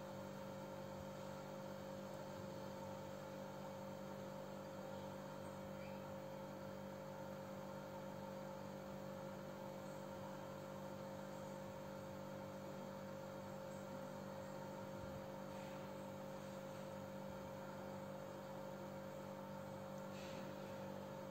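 Steady, faint electrical hum with a constant low tone and a higher tone above it. No clear clinks of the spoon on the glass bowl stand out.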